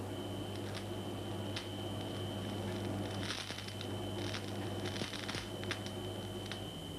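Magnesium burning in a stream of fluorine gas, crackling and sputtering in irregular bursts over a steady low hum.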